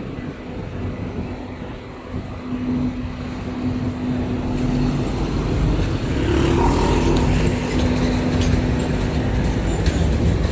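Low rumble of vehicle traffic that swells about halfway through and then holds, over a steady low hum.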